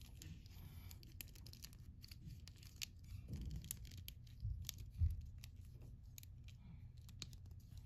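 Faint scattered clicks and rubbing of a plastic action figure being handled, its limbs worked at the joints, with a couple of soft bumps midway.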